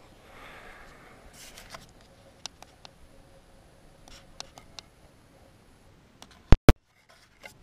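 Handling noise close to the microphone: faint rustling with scattered light clicks and taps. Near the end come two sharp, loud clicks in quick succession.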